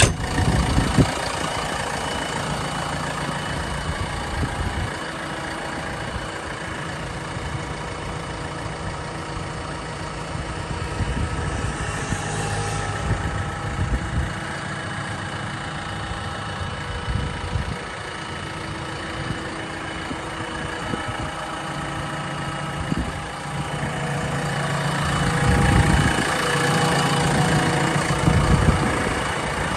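Diesel engine of a JCB 3DX backhoe loader running steadily at idle, getting louder for a few seconds near the end.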